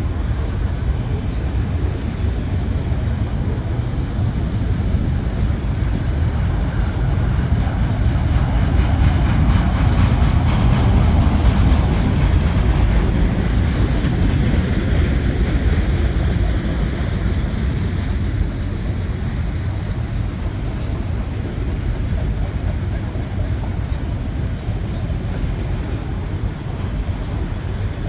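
CN intermodal freight train's cars rolling past on the rails: a steady rumble with rapid wheel clatter that swells to its loudest about halfway through, then eases a little.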